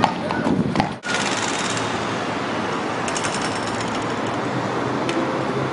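Modern low-floor tram coming along the track: a steady rumble with two bursts of rapid, evenly spaced clicking, each about a second long, and a low hum setting in near the end. Before a sudden break about a second in, street noise with a few sharp knocks.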